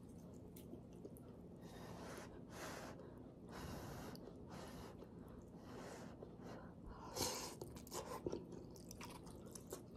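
Quiet mouth sounds of eating hot ramen noodles: soft breathy blowing, then a slurp of noodles about seven seconds in, with light chewing.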